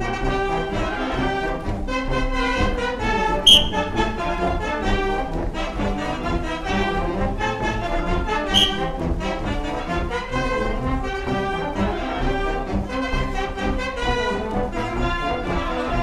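Live band music for a carnival sword dance, with brass instruments playing a lively tune. A short shrill high note cuts through it twice.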